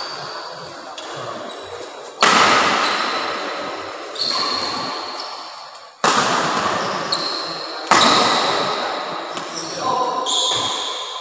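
Badminton rally: sharp racket strikes on the shuttlecock, one about every two seconds, each ringing on through a large hall, with short high shoe squeaks on the court between them.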